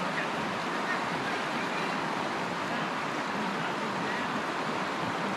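Fast, shallow river running over rocks: a steady, even rush of water.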